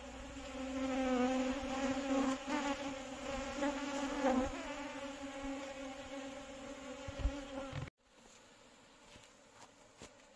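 A swarm of Asian honeybees (Apis cerana indica) clustered in a cloth catching bag, buzzing in a steady hum whose pitch wavers slightly. The hum cuts off suddenly about eight seconds in, leaving a much quieter background with a few faint clicks.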